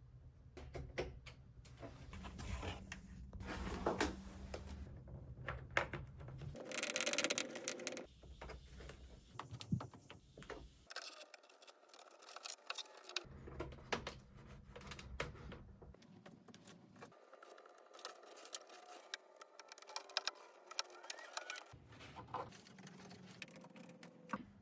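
Irregular clicks, taps and knocks of objects being handled, with bursts of rustling and scraping in between.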